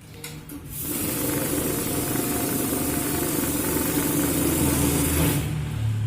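CCE M-2000 banknote counting machine running, its motor and vacuum pump giving a steady hiss over a low hum. It starts about a second in and stops near the end.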